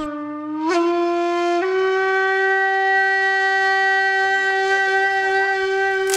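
Background music: a wind instrument holding long, steady notes. It steps up in pitch twice in the first two seconds, then holds one long note.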